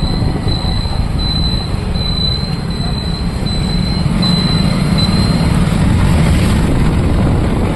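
Wind buffeting the microphone over motorbike engine and road noise while riding: a steady low rumble that grows a little louder about halfway through.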